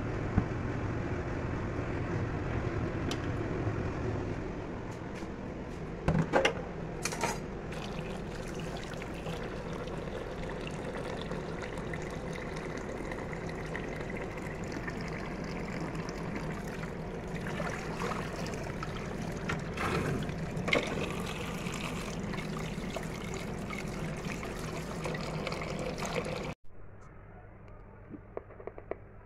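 Tap water running steadily into an aluminium pot of boiled eggs in a steel sink, cooling the eggs after boiling. There are a few sharp knocks about six to seven seconds in, and the water cuts off abruptly near the end. The first few seconds are most likely the eggs still boiling in the pot on the gas burner.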